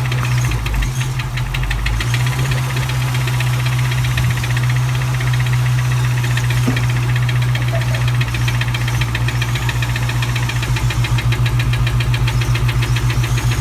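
1997 Mustang Cobra's 4.6-litre DOHC V8 idling with a fast, steady ticking knock, which the owner cannot yet place between rod knock, head tick or a spun bearing. About three-quarters of the way in, the running turns uneven with a regular pulse.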